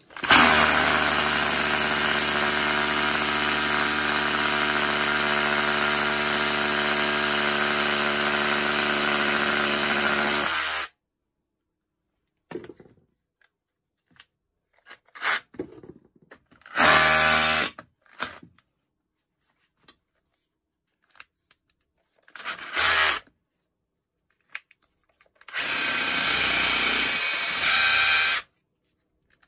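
Makita DHR242 18 V brushless SDS-plus rotary hammer test-running with a freshly fitted stator: one long run of about eleven seconds at steady speed, then a few short trigger pulls, the last lasting about three seconds.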